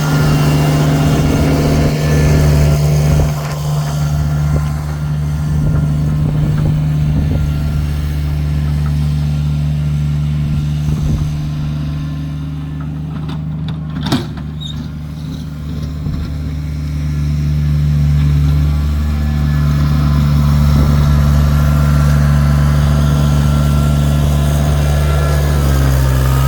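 Kubota tractor's diesel engine running steadily while plowing snow, with one sharp knock about halfway through and the engine speeding up near the end.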